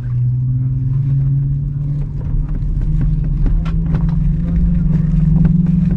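Airbus A330-200 engines heard from inside the cabin while taxiing: a steady low drone that slowly rises in pitch as thrust builds, over a low rumble, with a few light clicks and rattles.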